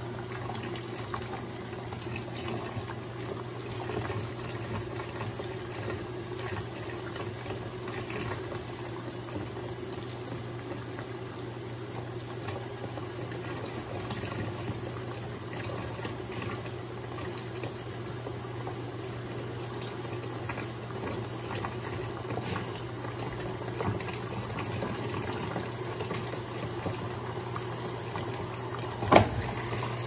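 Colormaq LCA12 top-load washing machine filling for the final rinse: water runs steadily through the softener dispenser into the tub over a steady low hum. Near the end there is one sharp click as the dispenser drawer is pulled open.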